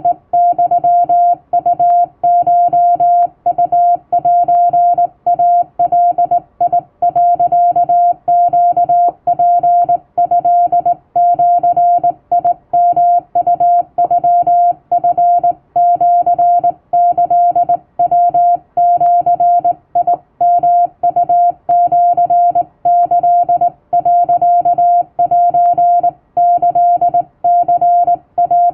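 Hand-keyed Japanese (Wabun) Morse code: a single-pitch CW beep switched on and off in dots and dashes by a telegraph key, with short gaps between characters.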